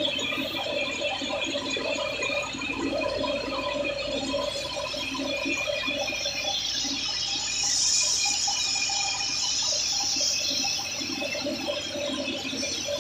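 Tractor-driven wheat thresher running steadily while wheat sheaves are fed into it. It is driven through its shaft by an Al Ghazi tractor, and gives several steady tones over a constant rushing noise. A louder high hiss swells about seven seconds in and fades again near ten seconds.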